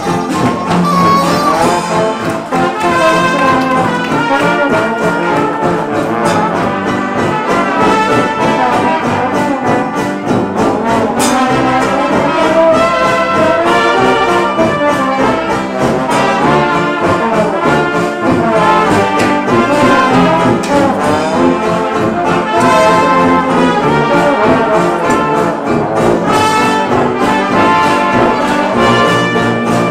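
Traditional jazz band playing an up-tempo number: trumpets and trombone leading over sousaphone and drums.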